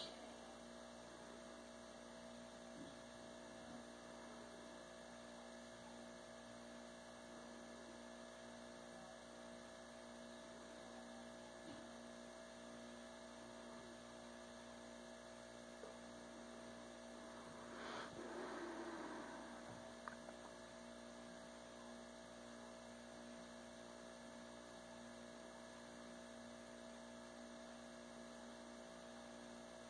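Near silence: a steady electrical hum of room tone, with one faint, brief rustle-like noise about eighteen seconds in.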